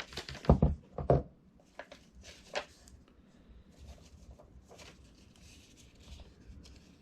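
Hard plastic parts of a pet water fountain being handled: several sharp knocks and clicks in the first second or so, a couple of lighter ticks after, then faint rustling.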